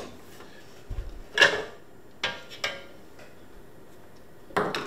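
Metal knocks and clatter as a General Radio Strobotac's chassis is handled and taken out of its metal case. There are about four or five separate knocks, the loudest about a second and a half in.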